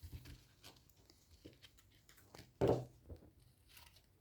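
Foam sanding blocks handled and pressed by hand: faint scattered rubbing and scuffing, with one louder short handling noise about two and a half seconds in.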